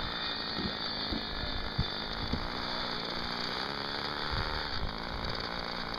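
Twin engines of a large radio-controlled P-38 Lightning model running at low throttle as it taxis, a steady mechanical drone whose pitch dips slightly near the end, with a few light clicks.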